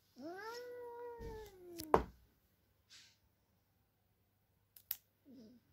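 A cat gives one long, drawn-out meow that rises, holds and slowly sinks, in protest at having its claws clipped. Sharp clicks of the pet nail clippers follow, one as the meow ends and another near the end.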